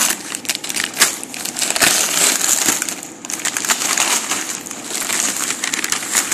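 Paper wrapping being torn and crumpled off a parcel by hand: continuous crinkling and ripping, easing briefly about three seconds in.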